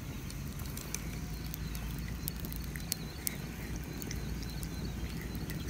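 Small twig campfire crackling, with scattered sharp pops over a low steady outdoor rumble.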